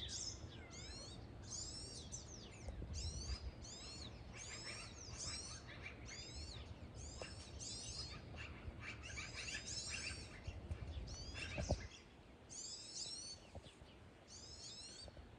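Small songbirds chirping, with clusters of quick, high, downward-sweeping notes about once a second. A single sharp knock comes about three-quarters of the way through.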